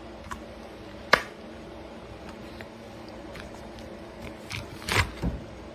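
Handling noise: scattered clicks and knocks, one sharp click about a second in and a few louder thumps near the end, over a steady low hum.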